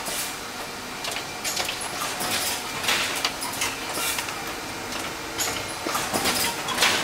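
CD production line running, a Netstal Discjet 600 moulder with a Singulus Skyline1 disc-handling unit: repeated short air hisses and clicks of the handling machinery over a steady machine hum.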